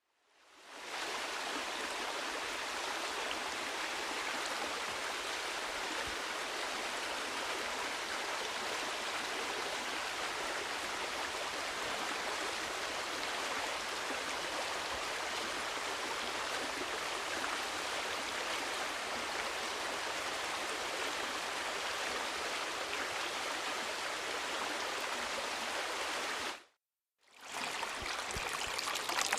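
Waterfall: a steady rush of falling water that fades in at the start. It cuts out for about half a second near the end, then comes back and grows slightly louder.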